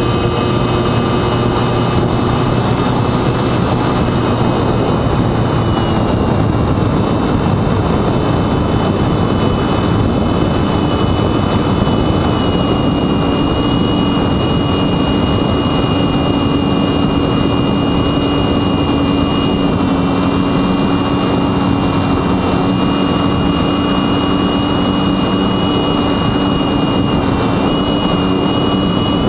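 Sunnysky X2220 brushless motor spinning a 9x7.5 propeller on a Mini Talon FPV wing: a steady whine over rushing wind noise, the pitch dropping a little about six seconds in and then holding.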